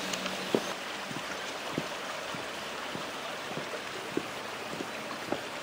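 Steady rushing noise with irregular soft ticks scattered through it.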